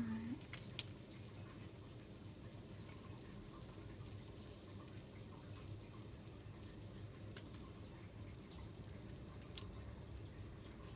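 Faint bubbling and dripping of a saucepan of ramen cooking on the stove, with a few light ticks.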